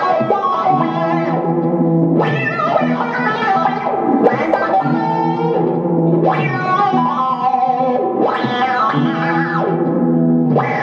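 Electric guitar played through a multi-effects pedal on a synth-like setting: sustained chords with sweeping tone, in a phrase that repeats about every four seconds.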